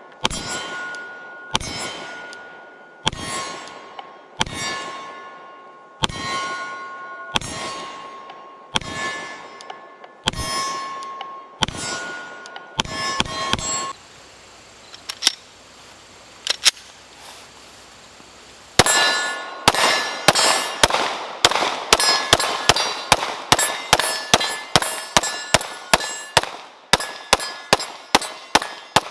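Glock P80 9mm pistol firing at steel targets: about ten slow, evenly paced shots, each followed by the ring of struck steel. After a short pause with a few clicks, a rapid string of shots runs at about three a second, the steel ringing with each hit.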